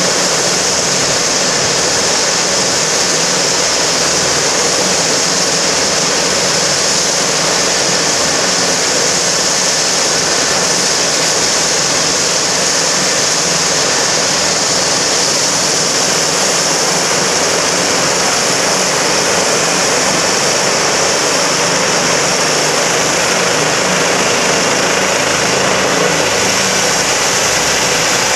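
Eurocopter EC135 air-ambulance helicopter running on the ground with its rotor turning: a steady high turbine whine over a constant rushing of rotor and downwash. The whine dips slightly in pitch near the end.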